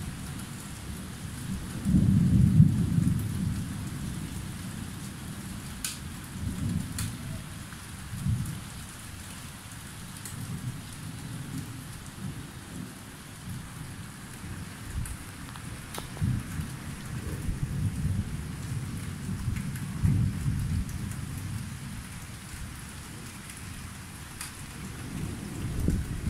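Thunderstorm: steady rain falling, with several rolling rumbles of thunder that swell and fade, the loudest about two seconds in. A few sharp taps of raindrops land close by.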